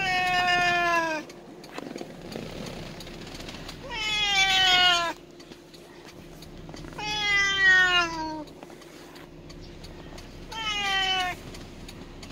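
Kitten meowing four times, long drawn-out meows that each slide down in pitch, a few seconds apart.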